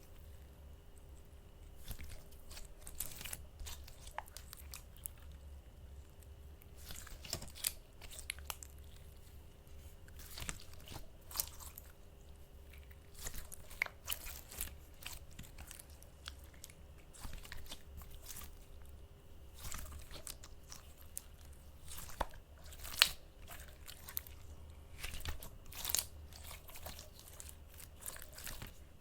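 Hands squeezing and stretching slime close to the microphone: clusters of sticky clicks and crackling pops every second or two. One sharp pop, the loudest, stands out about two thirds of the way through.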